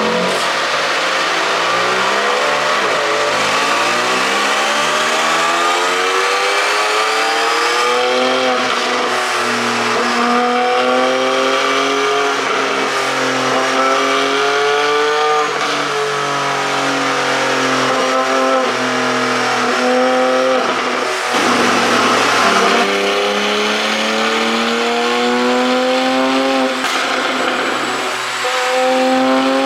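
Porsche 718 Boxster GTS 4.0's flat-six engine, fitted with a link pipe and an ECU pop-sound tune, accelerating hard: its pitch climbs and drops back again and again as it runs up through the gears.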